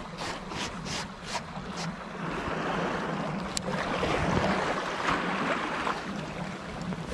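Shallow sea water lapping and splashing around a wading angler, with wind on the microphone. A quick run of soft ticks in the first two seconds and a single sharp click midway.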